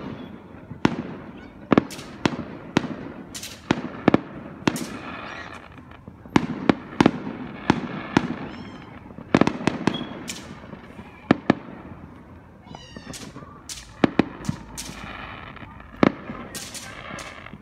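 Fireworks going off in rapid, irregular succession: dozens of sharp bangs, some loud and some farther off, each trailing off in an echo. A rising whistle sounds about two-thirds of the way through.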